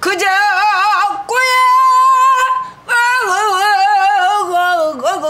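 A woman singing pansori on sustained vowels with a wide, wavering vibrato. About a second in she moves to a note held steady for over a second, then returns to wavering phrases, with short breaks between them.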